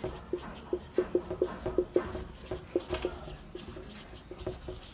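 Marker pen writing on a whiteboard: a quick, irregular run of short pen strokes, several a second.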